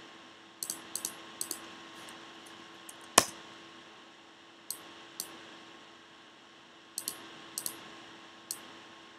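Computer keyboard and mouse clicking: a dozen or so short taps at irregular gaps, some in quick pairs, with one louder click about three seconds in. A faint steady hum runs underneath.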